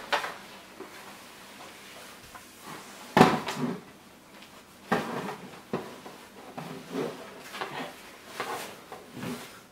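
Plastic and metal parts of a Graco Nearby Napper frame knocking and clunking as its poles are handled and pushed into their sockets. There are several separate clunks, the sharpest about three seconds in.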